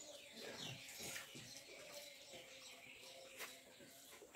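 Faint eating sounds: chewing and lip smacking, with soft scattered clicks and one sharper click about three and a half seconds in.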